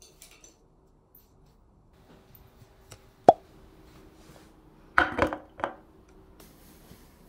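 Objects being handled on a tabletop: one sharp tap, then a quick run of knocks and clinks a couple of seconds later.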